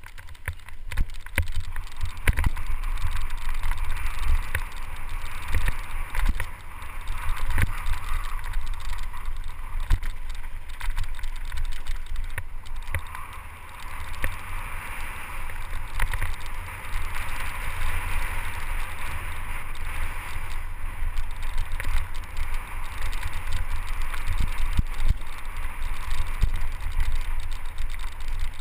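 Mountain bike descending a dirt trail, heard from a helmet-mounted camera: wind buffeting the microphone, tyres rolling over dirt and rocks, and frequent knocks and rattles from the bike over bumps.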